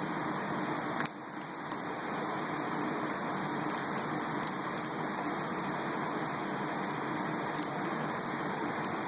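Rubik's Cube being twisted by hand, its plastic layers giving small irregular clicks, over a steady background hiss.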